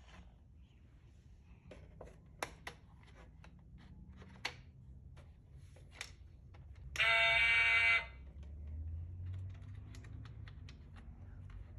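Operation board game: scattered light plastic clicks and taps from the pieces and tweezers. About seven seconds in, the game's electric buzzer sounds loudly for about a second, the sign that the tweezers touched the metal edge of a cavity.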